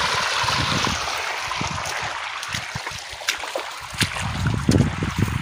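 Irrigation water gushing from the open end of a black pipe fed by a borewell pump, splashing onto the ground. The rush fades after about two seconds, leaving scattered light knocks and rustles.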